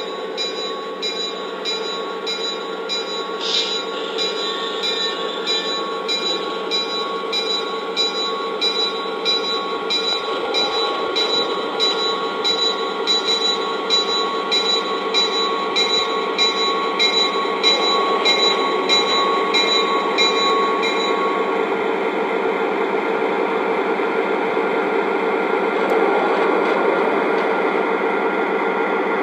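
Lionel Legacy L&N FA-1 model diesel locomotive's electronic sound system: diesel engine running steadily while a bell rings at about one and a half strikes a second, the bell stopping about three-quarters of the way in.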